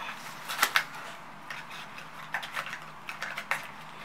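Bottles and caps being handled: scattered light clicks and taps, a few of them a little louder.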